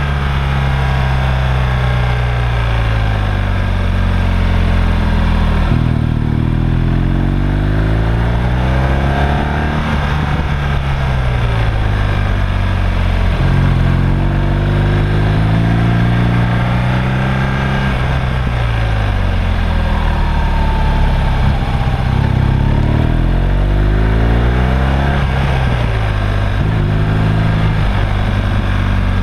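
Motorcycle engine on a track lap, its revs climbing and falling again and again as the bike accelerates out of corners and slows into them.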